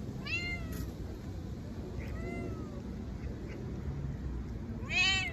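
A cat meowing three times, short calls that rise and fall in pitch, about two seconds apart. The middle one is faintest and the last is the loudest.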